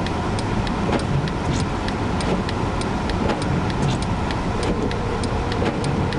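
Car driving slowly on a snow-packed road in a blizzard, heard from inside the cabin: steady engine and road rumble with many light, irregular sharp ticks.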